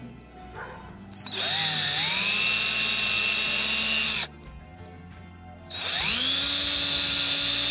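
Cordless drill with a twist bit boring small pilot holes into the wooden bungs that plug the screw holes in a wooden rail. It runs twice, each time spinning up with a rising whine and then holding steady. The first run starts about a second in and lasts about three seconds; the second starts near the end.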